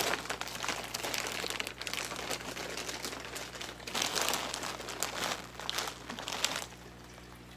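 Clear plastic packaging bag crinkling and rustling in irregular handfuls as a rolled rug is pulled out of it, easing off near the end.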